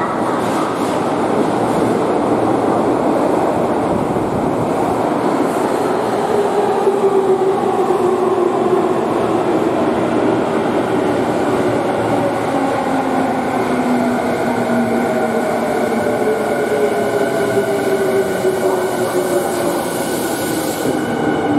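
Electric commuter train pulling into an underground metro station: a steady rumble of wheels and car bodies, with the electric motors' whine falling slowly in pitch as the train brakes, and higher steady tones near the end as it nears the stop.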